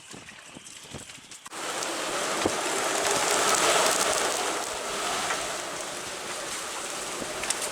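Strong wind rushing, coming in abruptly about a second and a half in and holding as a steady, loud hiss: the afternoon wind getting up.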